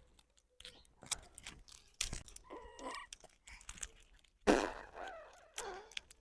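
Baby parrot giving a short call amid scattered clicks and crunches, with a louder rustling burst about four and a half seconds in.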